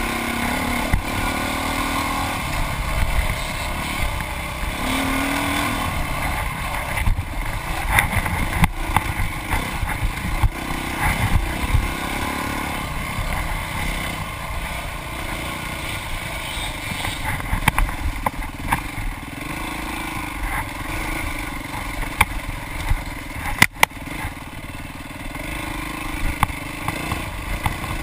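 Dirt bike engine revving up and down as the bike is ridden hard over a rough trail, heard close up from the bike, with low wind rumble and scattered clattering knocks from the bike over bumps; one sharp knock stands out late on.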